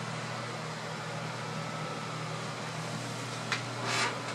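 Cooling blower of a powered-up 833A vacuum-tube RF amplifier running with a steady whir and low hum. A short click and a brief rustle come near the end.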